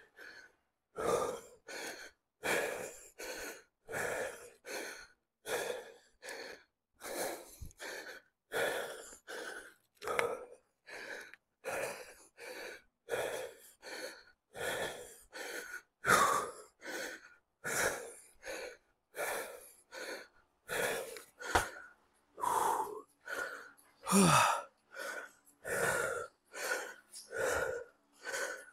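A man breathing hard and fast, panting in and out in a steady rhythm of about three breaths every two seconds, a few breaths louder than the rest. He is out of breath from hard exercise.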